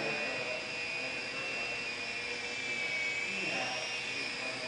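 Small electric R/C helicopter in flight: a steady high motor whine over the hum of the spinning rotors, the pitch dipping and rising briefly about three seconds in.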